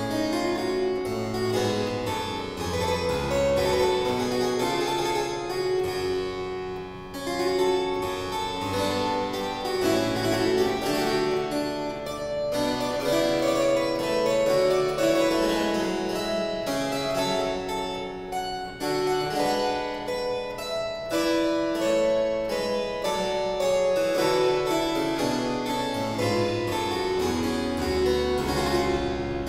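Frank Hubbard French double harpsichord played solo: a continuous stream of quick plucked notes over sustained bass notes, with brief breaks in the line about seven and nineteen seconds in.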